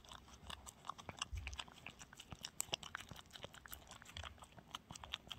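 A dog eating chicken porridge from a bowl: fast, irregular wet chewing, smacking and lapping clicks, with a few soft knocks.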